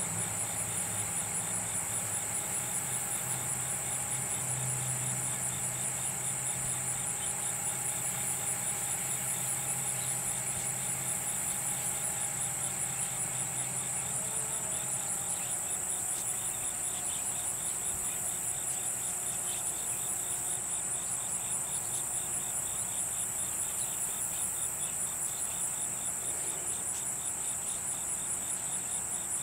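Steady chorus of insects, a high-pitched, finely pulsing trill that runs without a break. A low hum underneath fades out about halfway through.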